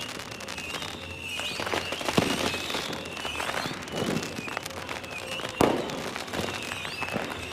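Fireworks going off: a steady crackle with bangs and pops, the two loudest about two seconds and five and a half seconds in.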